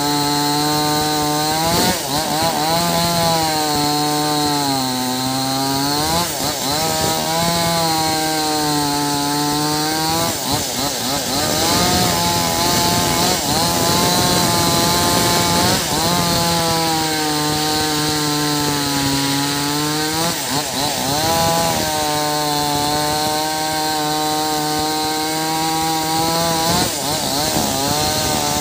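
Maestro Plus CS6500L two-stroke petrol chainsaw cutting into a large gnarled stump, running at high throttle. Its engine note dips again and again as the chain bites and loads it, then rises back.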